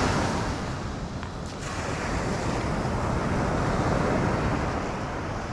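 Ocean surf washing on the beach in a steady rush that eases and builds again, with wind on the microphone.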